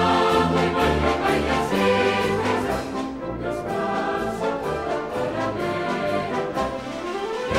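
Brass band music playing a tune, the brass instruments carrying sustained notes, with a rising slide in pitch near the end.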